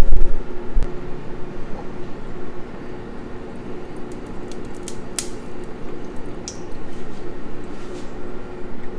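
Heavy bumps of a phone microphone being handled in the first second, then a steady low hiss with a faint hum and a few light clicks as olive oil is poured from a glass bottle into an enamel pot.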